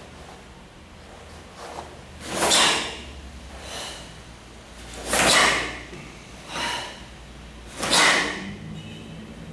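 A karateka's forceful breathing during the Suparinpei kata: three loud, sharp exhalations, each about half a second long and spaced a few seconds apart, with two softer breaths between them.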